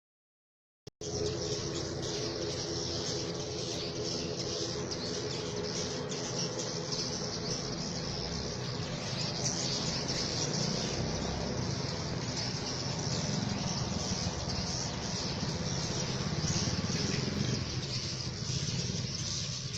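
Many swiftlets twittering at once in a dense, unbroken chorus of high chirps, starting about a second in, over a steady low hum.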